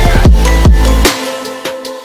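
Electronic music track with a heavy bass line and sharp drum hits. The bass drops out about halfway through, leaving only lighter hits.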